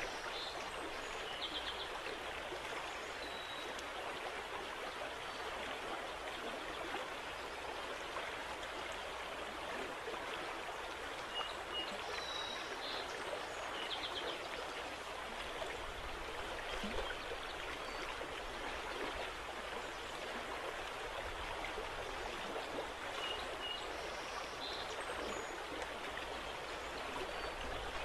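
River water lapping and moving steadily along the bank, an even watery rush with no breaks, with a few faint high chirps here and there.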